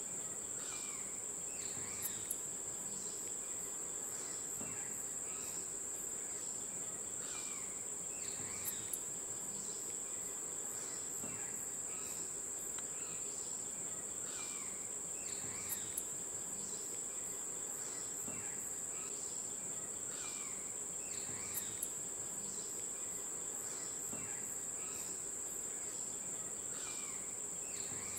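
Steady high-pitched drone of insects, with short falling chirps repeated in clusters every few seconds and a pair of sharp clicks every six or seven seconds.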